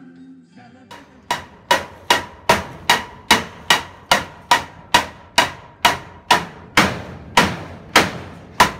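Hammer driving nails into wooden framing: a steady run of about seventeen blows, roughly two and a half a second, each with a short ring.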